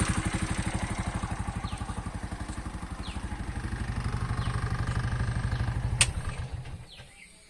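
Bajaj BS6 CNG auto rickshaw engine idling with an even, rapid ticking beat, which the owner puts down to a loose tappet. About six seconds in it is switched off with a sharp click and runs down to a stop.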